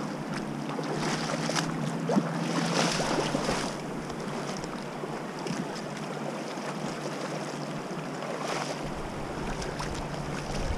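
Steady rush of a shallow, rocky river running over stones, a little louder between about one and four seconds in.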